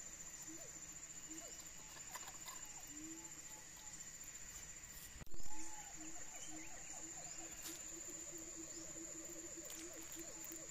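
Forest insects calling: a steady high-pitched trill, joined about halfway by a rapid run of short low pulsing notes. A single brief low thump about five seconds in is the loudest sound.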